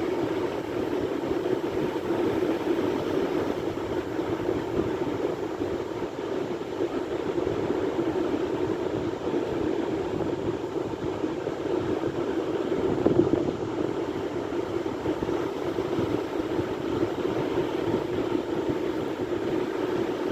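Sea waves breaking in a steady, continuous rumble, swelling a little about two-thirds of the way through.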